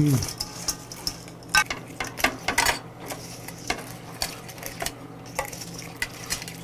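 Wooden chopsticks stirring seasoned raw crabs in a stainless steel bowl and scraping them out onto a plate: irregular sharp clicks and scrapes of wood on metal.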